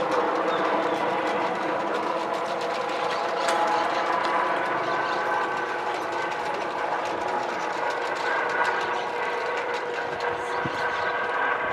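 Airbus Helicopters EC135 helicopter flying overhead: a steady drone of rotors and turbines, with a whine of several steady tones held above it.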